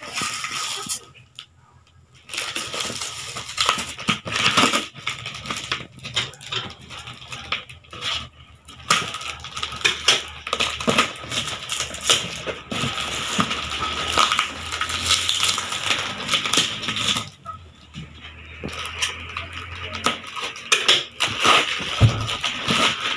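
Clear plastic wrap and packing tape crackling and tearing as they are pulled off a cardboard box, with cardboard rustling as the box's flaps are opened near the end.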